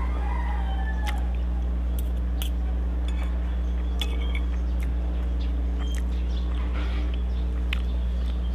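Metal spoon and fork clinking and scraping against a ceramic plate of rice while eating: a few separate light clinks a second or two apart. Under them runs a steady low hum.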